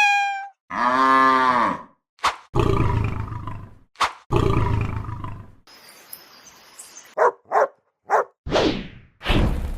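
A string of separate cartoon-style sound effects with short gaps between them: a ring fading at the start, a pitched tone that rises and falls, two sharp clicks, several rushing bursts about a second long, a thin high tone, three quick chirps and a whoosh.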